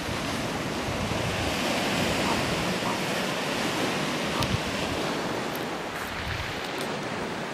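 Surf washing onto a shingle beach: a steady, even rushing hiss, with wind buffeting the microphone.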